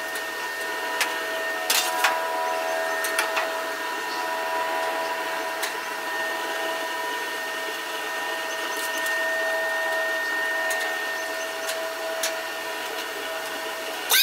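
Traeger pellet grill running with a steady motor whine from its fan, with occasional light clicks as fish pieces are laid on the metal grates.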